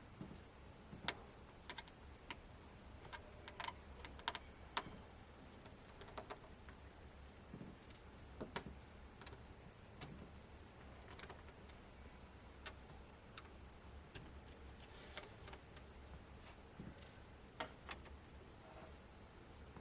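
Faint, irregular small clicks and taps of hand tools and small hard parts being handled over a low steady hum.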